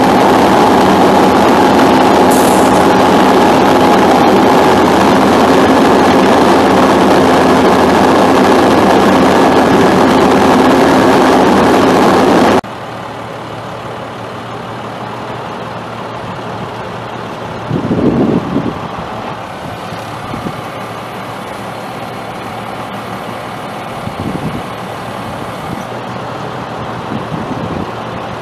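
International DT530 8.7-litre inline-six turbo diesel of a digger derrick truck running steadily and loudly. About twelve seconds in it drops abruptly to a quieter steady run, with a few short louder swells.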